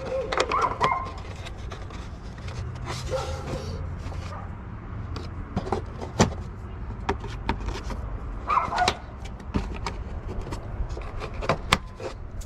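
Irregular clicks and knocks of plastic engine-bay parts being handled and snapped back into place as the air intake breather tube is refitted. A low steady hum runs underneath, and a few short voice-like sounds come near the start and about three and eight seconds in.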